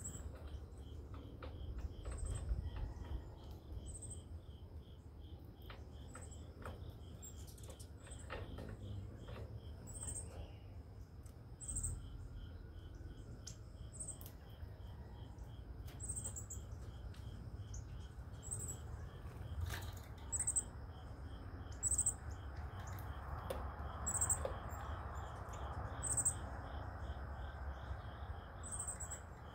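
Evening insect chorus, a steady high drone with a fast pulsing trill under it, and a bird's sharp, high chip note repeated every second or two.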